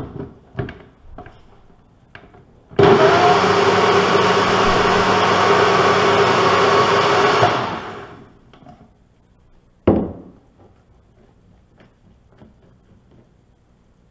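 Sencor Nutri Blend 1000 W personal blender motor running steadily for about five seconds, blending a smoothie in its inverted cup, then spinning down. A few knocks come before it as the cup is seated and pressed onto the base, and a single knock about ten seconds in.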